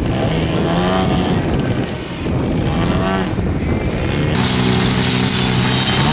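A model airplane engine in flight, its pitch rising and falling as the plane manoeuvres and throttles. About four seconds in it cuts to a steady, even note of a DA-150 twin-cylinder two-stroke gasoline engine running on a large model plane on the ground.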